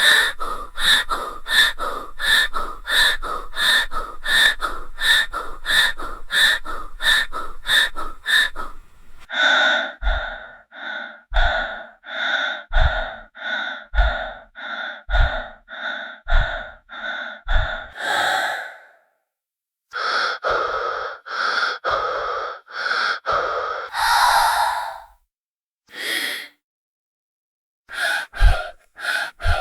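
Creepy human breathing sound effect. It starts as rapid panting at about two breaths a second for the first nine seconds. It then slows to deep breaths a little over a second apart, each with a low thump, and ends in irregular breaths broken by short pauses.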